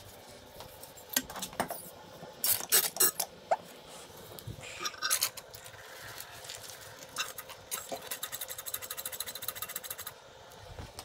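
Motorcycle fork held upside down over an oil drain pan while its damper rod is pumped to force the old fork oil out: scattered clicks and squishes, then a fast, even run of ticks for about two seconds near the end.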